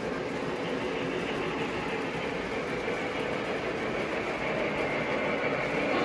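O gauge model train running on its track, a steady rumble with no distinct clicks.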